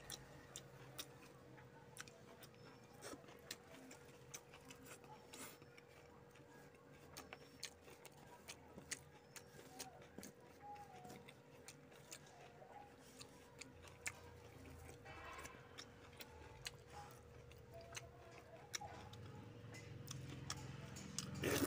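Faint eating sounds of a man eating rice and fish curry by hand: soft, irregular clicks and smacks of chewing and of fingers working the food, over a faint steady hum.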